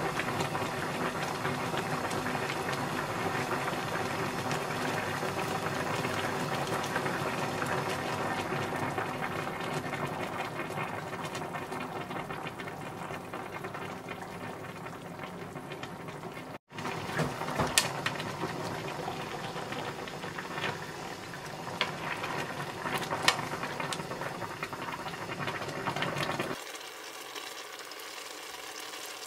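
Kimchi and mackerel broth boiling hard in a stainless steel pan, a steady dense bubbling. In the second half a few sharp clicks sound over the bubbling, and the bubbling gets quieter near the end.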